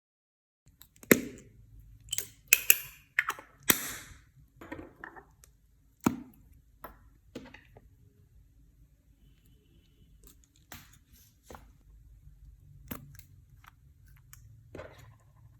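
Clear slime being pressed and kneaded by hand, giving a run of sharp crackles and pops that are loudest in the first few seconds, then thinning out to scattered soft clicks and squishes.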